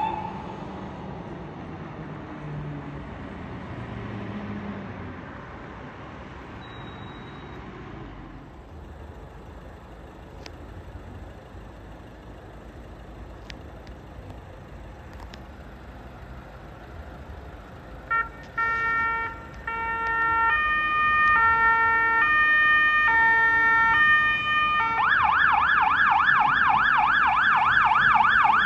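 Fire engine sirens on an emergency run. First a fire engine's siren and engine fade as it drives away. About two-thirds of the way through, an approaching siren steps between several fixed pitches, then switches to a loud, fast yelp sweeping rapidly up and down.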